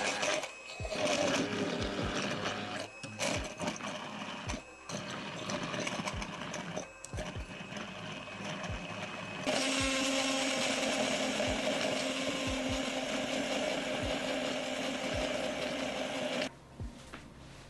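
Immersion blender running in a plastic beaker, puréeing blueberries. It runs unevenly with short breaks for the first nine seconds or so, then runs steady with a held hum until it stops about a second before the end.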